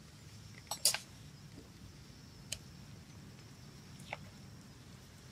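A few light clicks of a metal fork on the cast-iron pan as it digs into a baked gratin: a quick double click about a second in, then single clicks about halfway through and near the end, over a faint steady background.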